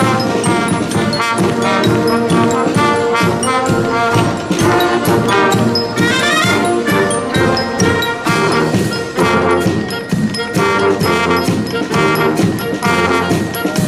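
Military marching band playing: brass, with sousaphones, trumpets and saxophones, over a steady beat of bass drum and snare drums, with a quick rising run about six seconds in.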